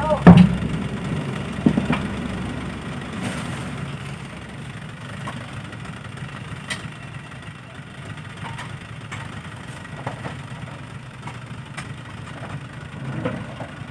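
Dump truck's diesel engine running steadily while its tipper bed is raised, emptying a load of fill soil, slowly getting quieter. A loud thud just after the start and a few scattered knocks as soil clumps and rocks tumble out.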